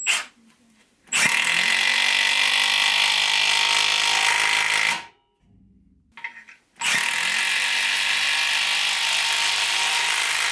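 Milwaukee M12 stubby impact wrench hammering a long screw into a timber beam. It runs in two steady bursts of about four seconds each, separated by a pause of about two seconds with a few light clicks.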